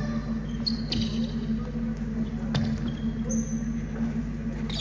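Indoor basketball court sounds: sneakers squeaking briefly on the court twice and a few ball bounces, over a steady low hum.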